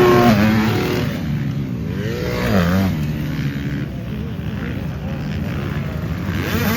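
Motocross dirt bike engines revving, their pitch climbing and falling several times, loudest right at the start, again about two and a half seconds in and near the end.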